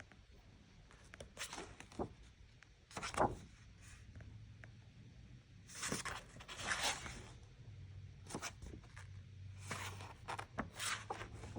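Irregular bursts of rustling and scraping, like things being handled and moved, the loudest about three seconds in and again around six to seven seconds in, over a faint low hum.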